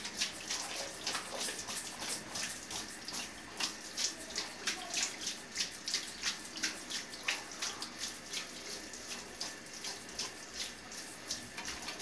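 Water spraying from a handheld shower head onto a wire birdcage and a tiled shower floor: a steady splashing hiss with irregular spattering drops.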